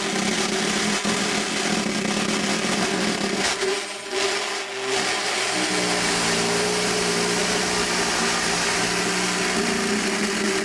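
Sustained buzzing drone from experimental found-object percussion, with steady low tones under a dense rough noise. It thins out briefly about four seconds in and returns with new pitches.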